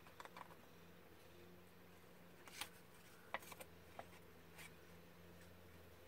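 Small craft scissors snipping through cardstock: a few faint, scattered cuts with light paper rustling, the sharpest snip a little over three seconds in.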